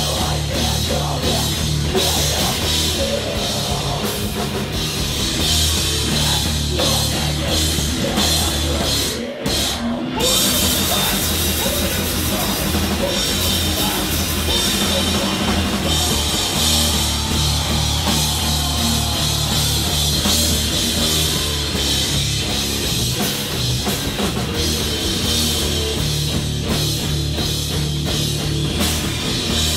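Hardcore punk band playing live and loud, the drum kit driving a dense wall of amplified instruments. About nine seconds in the band stops briefly, then comes back in.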